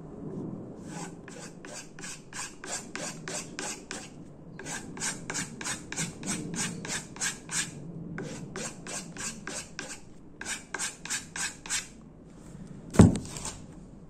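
Small Victorinox pocketknife blade being stropped on a wooden strop paddle, the finishing step after sharpening: quick, even rubbing strokes, about three a second, in four runs with short pauses. A single loud knock near the end.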